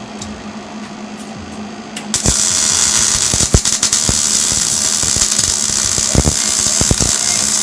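Electric welding arc crackling and sizzling, with frequent sharp pops. It strikes up about two seconds in over a steady low hum and keeps going from there. The welds come from a first-time welder.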